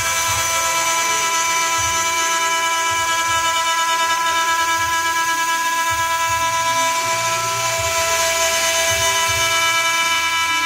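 CNC milling spindle cutting a metal block: a steady high whine made of several held tones over a hiss, with soft irregular low thuds as the cutter bites.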